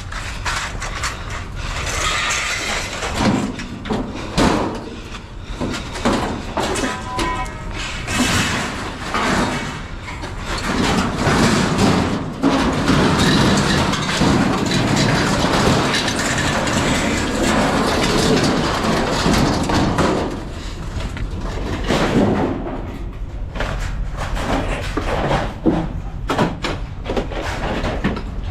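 A string of irregular knocks, bangs and thuds, with a longer stretch of dense rattling and scraping in the middle.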